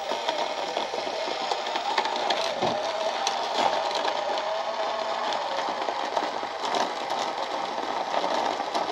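Small electric motor and gearbox of a 1/24-scale SCX24 mini rock crawler whining as it crawls over the course. The whine wavers in pitch as the load changes, with small scattered ticks.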